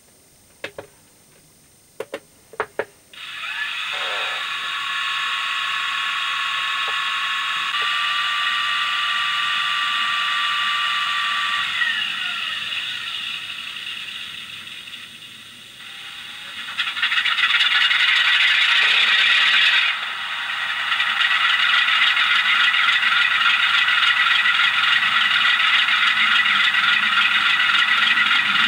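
Sound decoder in a DCC model diesel locomotive playing a diesel engine start-up and running through its small speaker, thin and without bass. A few sharp clicks come first; the engine sound starts about three seconds in, its note steps up around eight seconds, fades lower for a few seconds, then gets louder from about seventeen seconds in and runs steadily.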